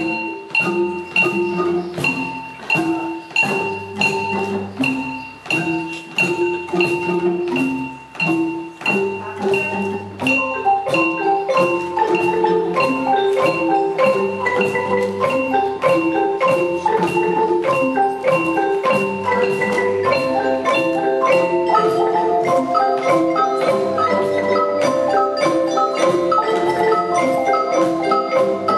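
A children's ensemble of wooden marimbas playing a lively tune, bars struck with mallets in a steady, busy rhythm. More parts join about ten seconds in and again about twenty seconds in, filling out the sound.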